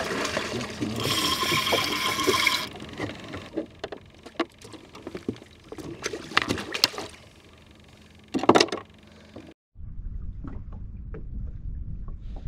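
A hooked fish splashing at the surface beside a kayak, a loud rush of water at first, then scattered sharp splashes and knocks as it is brought alongside and handled. After a break about ten seconds in, a steady low rush of wind and water.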